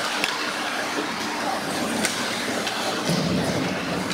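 Ice hockey play in an indoor rink: skate blades scraping the ice with a few sharp clacks of sticks and puck, over spectators' chatter.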